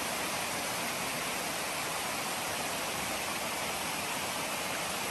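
Steady, even rushing of a shallow, clear stream flowing past.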